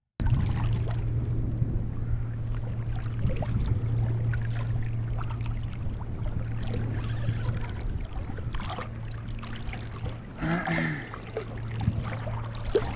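Wind buffeting the camera microphone over choppy bay water, a steady low rumble with small splashes and rustles, and a short pitched sound about ten and a half seconds in.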